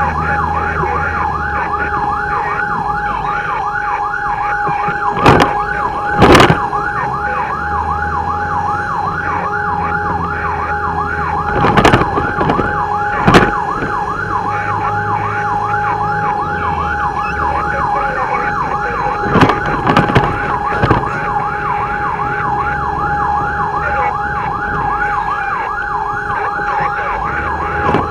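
Fire pumper's electronic siren on a fast yelp, its pitch sweeping up and down several times a second without a break, with the truck's engine running low underneath. A handful of brief, sharp, loud sounds stand out above it, a pair about five to six seconds in, two more around twelve to thirteen seconds, and a few near twenty seconds.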